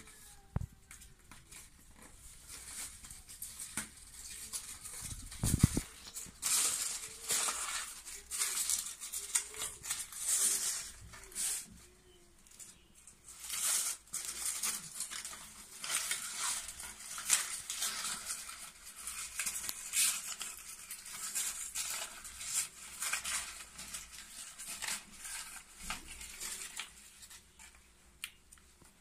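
Self-adhesive PVC sticker film and its paper backing rustling and crinkling in irregular bursts as hands press and smooth it into place, starting about six seconds in. A single sharp knock comes just before, about five seconds in.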